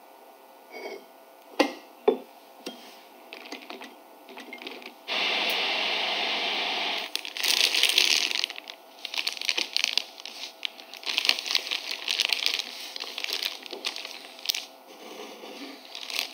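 A plastic zip-top bag crinkling and rustling in bursts as hands work it. It comes after two sharp clicks about two seconds in and a steady hiss lasting about two seconds.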